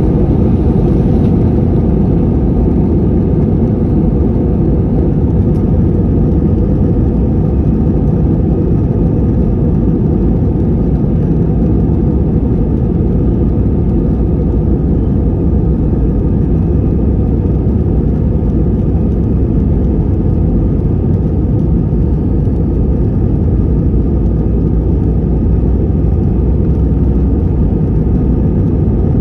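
Steady loud rumble inside the cabin of an Airbus A320-214 in flight, the noise of its CFM56-5B turbofan engines and the rushing air.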